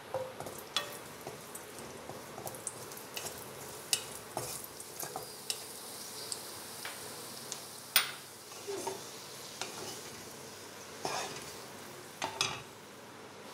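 Raisins and cashews frying in ghee in a kadai, with a faint steady sizzle. A wooden spatula scrapes and knocks against the pan as the nuts are stirred, in irregular clicks; the sharpest knock comes about eight seconds in, and there is a cluster of knocks near the end.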